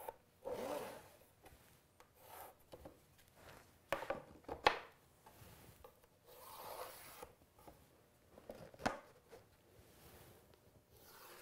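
A pencil scratching along plywood as it is drawn against a wooden marking gauge to lay out lines near the edge. There are brief scrapes and a few sharp knocks as the gauge and parts are handled, the loudest about four to five seconds in.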